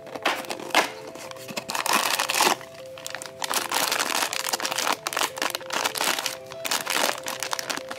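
A small cardboard snack box being torn open by its tab, then the plastic snack bag inside crinkling and rustling as it is handled, with steady background music under it.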